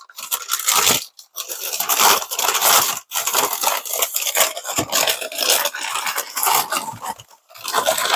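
Packing material being handled by hand: a continuous crackling and crinkling of wrapping as it is pulled and torn, broken by a few short pauses.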